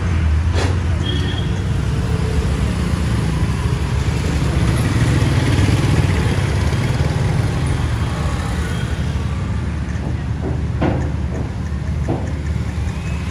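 Road traffic: motor scooters and motorcycles passing close by over a steady low engine rumble, loudest about five to six seconds in. A few short sharp clicks stand out near the start and near the end.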